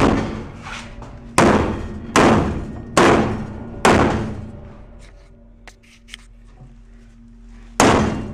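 Hammer blows on the thin steel wall of a portable office container, knocking a dent outward from the inside. Five heavy blows in quick succession, then a pause and one more near the end, each leaving a ringing, echoing decay in the metal box.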